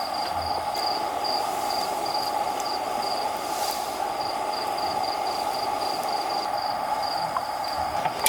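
Insects chirping in a high, evenly pulsing trill of a few pulses a second, over the steady rush of flowing stream water. A single sharp knock comes right at the end.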